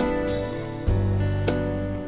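Live band playing an instrumental passage with no singing: strummed acoustic guitars over electric bass and drums, with a fresh accent about a second in.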